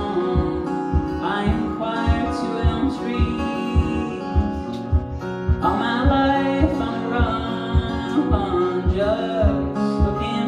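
Acoustic guitar strummed in an instrumental break of a live folk song, with a steady low thump on each beat.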